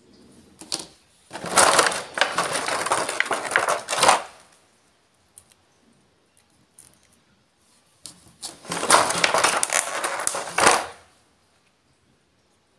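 Plastic packaging crackling and clicking as small plastic toy pieces are handled and pulled from a clear blister tray, in two bursts of a few seconds each.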